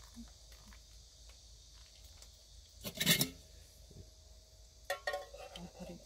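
Metal clatter of a finned camping cook pot being lifted off a gas stove's burner grate about halfway through, then a few lighter clinks near the end as the pot meets a stainless steel cup for pouring hot water.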